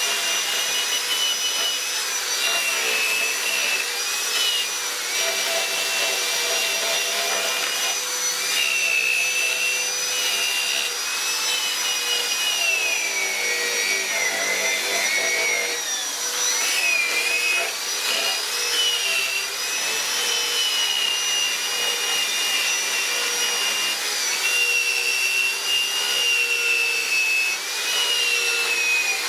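Handheld electric die grinder with a small disc running continuously against carved wood, a steady high whine that wavers and dips in pitch as the disc bites and eases off.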